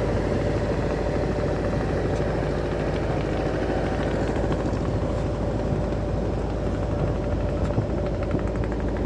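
A river ferry boat's engine running steadily under way: a constant low thrum with a steady tone over it.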